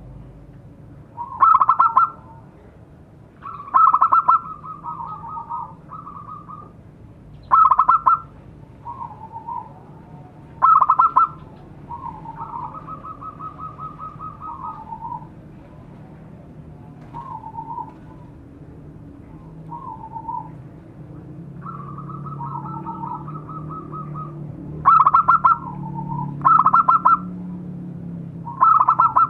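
Zebra dove (perkutut) singing its cooing song: about seven loud, rapidly rolling coo phrases a few seconds apart, with softer, lower coos between them.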